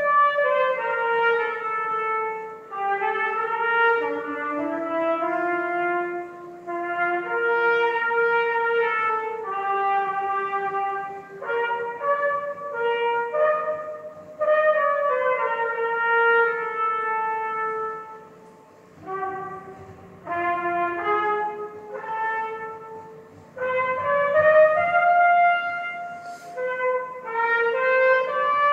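A solo wind instrument, most likely a trumpet, playing a slow melody one note at a time, in phrases separated by short breaks.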